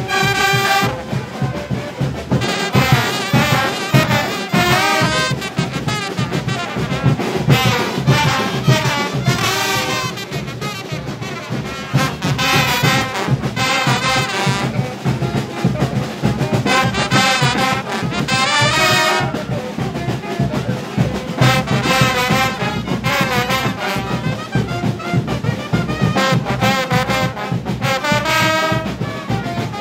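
Street brass band of trombones and trumpets playing a carnival tune, with a steady drum beat beneath.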